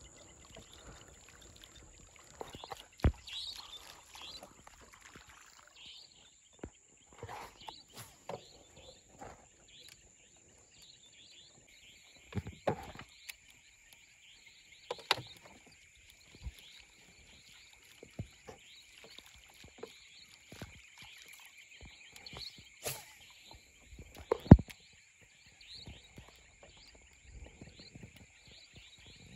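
A steady high-pitched insect chorus, joined about twelve seconds in by a second, lower steady trill, over scattered light knocks and clicks from the wooden canoe. The loudest knocks come about three seconds in and near the end.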